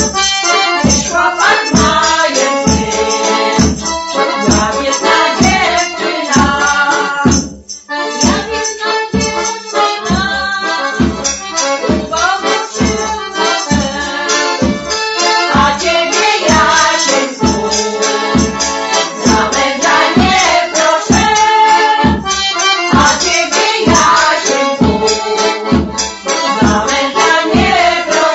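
Polish folk band music: accordion with women's voices singing together over a steady beat of about two a second. There is a brief break about seven and a half seconds in.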